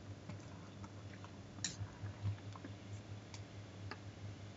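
A few faint, scattered computer clicks over a steady low hum.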